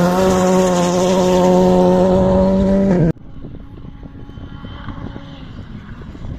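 Rally car engine at high revs on a gravel stage, its pitch rising and then held steady near full throttle as it passes close by; it cuts off abruptly about three seconds in. A second rally car's engine follows, much fainter and farther off.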